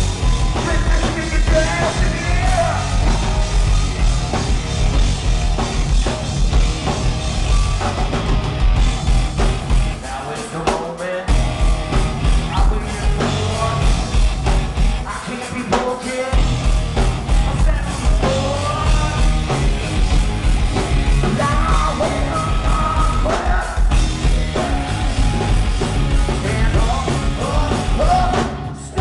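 Hard rock band playing live and loud: drums, bass and guitars with a singer yelling the vocal. Twice, for about a second, the bass and kick drum drop out before coming back in.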